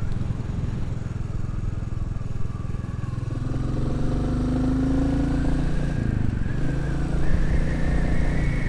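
Royal Enfield Classic 350's single-cylinder engine running while riding along. Its note climbs steadily, dips briefly about six seconds in, then climbs again.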